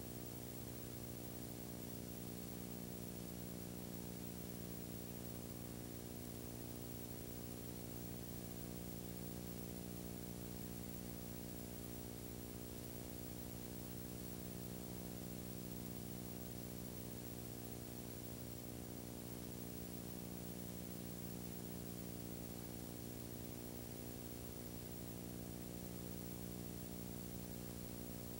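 Steady electrical hum with a constant hiss, unchanging throughout: the noise floor of a silent home-movie film transfer, with no sound from the scene itself.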